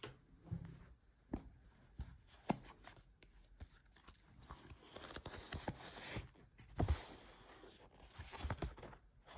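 Paper and card rustling as a price tag and a stiff white card insert are handled, mixed with the soft sound of hands on fleece. A few sharp taps and crinkles stand out, the sharpest about seven seconds in.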